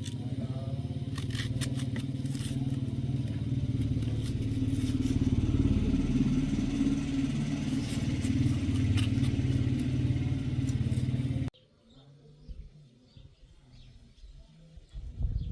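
A small engine running steadily with a low drone and some rattling over it. It cuts off abruptly about three-quarters of the way through, leaving faint outdoor sounds.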